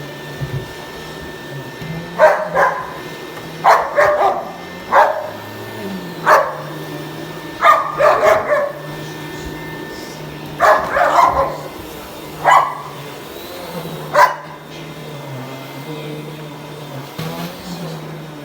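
German Shepherd barking in short loud bursts, singly and in quick runs of two or three, at a running household vacuum cleaner whose motor hums steadily underneath. The barking stops about fourteen seconds in, leaving only the vacuum's hum.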